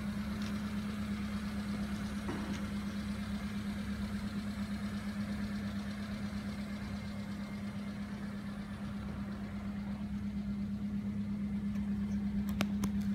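Subaru Sambar kei truck's small 658 cc four-cylinder engine idling steadily with an even, pulsing hum. A couple of light clicks near the end.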